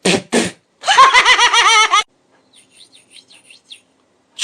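A high voice makes two short sounds, then a quick-wavering, trilling vocal sound for about a second, like a giggle or a mimicked call. Faint high chirps follow for a second or so.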